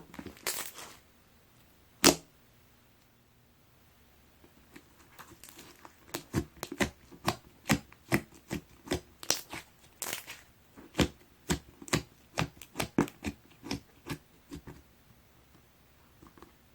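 Clear slime being squeezed and pressed by hand, giving sharp clicks and pops: one loud pop about two seconds in, then a steady run at about two a second through most of the rest.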